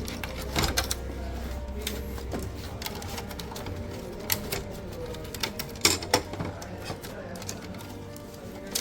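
Scattered light clicks and knocks of hands and tools handling the plastic and metal parts of a semi-automatic washing machine's timer assembly as it is being removed.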